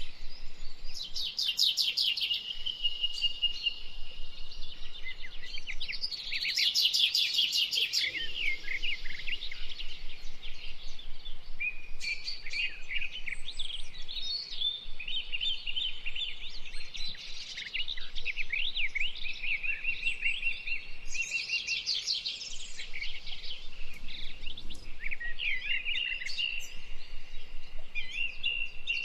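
Many birds chirping and singing at once in a dense rainforest chorus, with rapid trills that come back every several seconds.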